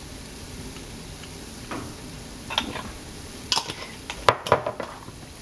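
Faint steady sizzle of a sausage and spinach mixture cooking in a nonstick skillet on low heat, with a few sharp clicks and knocks of kitchenware against the pan, most of them in the second half.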